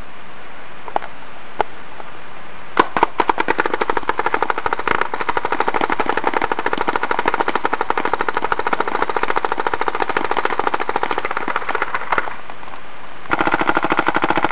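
Dye DM6 electropneumatic paintball marker firing: a few single shots, then a long, very fast string of shots starting about three seconds in, a short break near the end, and rapid fire again.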